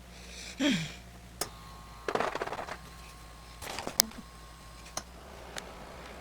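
Jigsaw puzzle pieces being sifted and tapped down on a table: scattered sharp clicks and short bursts of rustling. A brief low falling tone sounds about half a second in.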